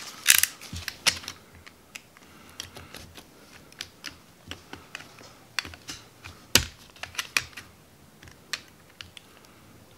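Utility knife blade shaving down the plastic hold-down tab at the base of a car battery: a string of irregular sharp clicks and scrapes as the blade bites into the plastic, one louder snap a little past halfway.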